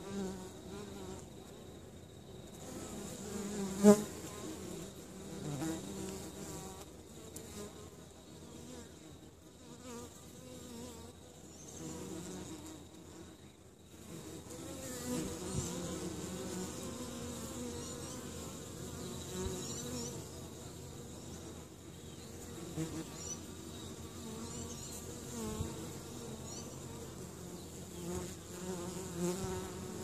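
Honey bees and common wasps buzzing at a beehive entrance, their wingbeat hums wavering up and down in pitch as insects fly close and away. One brief loud spike about four seconds in stands out above the buzzing.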